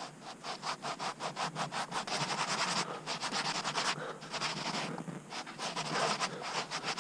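A cloth rag being rubbed briskly back and forth along the bead of a mountain-bike tubeless tyre, in quick rhythmic strokes about five a second. The bead is being wiped clean of dirt so the tyre will seat on the rim.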